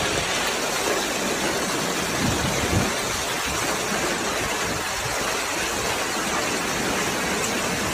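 Heavy storm downpour: a dense, steady rush of rain pounding down without let-up.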